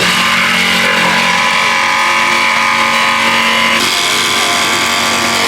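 Power saw running steadily while cutting the opening for a new hatch in the boat's deck, its tone shifting about four seconds in.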